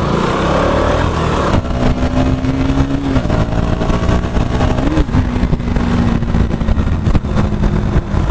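Motorcycle engine running under the rider as the bike pulls away and rides along the street. The engine note firms up about a second and a half in, then holds steady, with a brief rise and fall in pitch midway.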